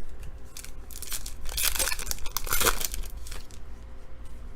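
Foil wrapper of a trading-card pack being torn open and crinkled, in crackly bursts, loudest between about one and a half and three seconds in.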